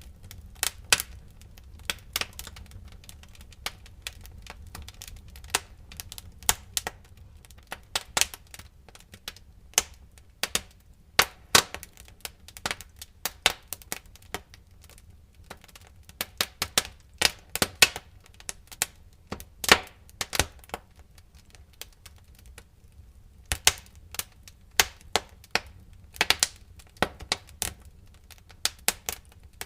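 Burning firewood crackling: irregular sharp snaps and pops, a few much louder than the rest, over a faint low rumble of the fire.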